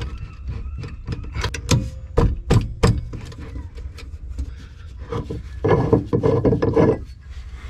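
A bronze pipe fitting being turned on a through-hull's threads: sharp metal clicks and knocks, then a grating, rasping rub of metal thread on thread about five seconds in. The fitting is pipe-threaded and is being forced onto a straight-threaded through-hull, so the threads bind and engage only partly.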